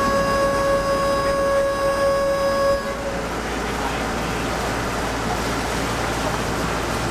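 A boat horn sounds one steady blast of about three seconds, then stops, leaving the low rumble of the boat running across the water.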